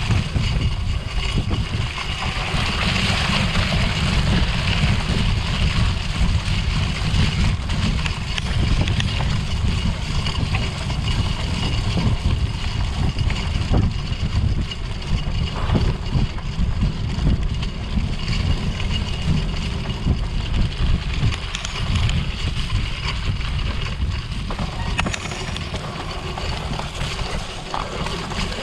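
Wind rumble buffeting the microphone of a cyclocross bike being raced, with a steady hiss over it and a few faint knocks from the bike.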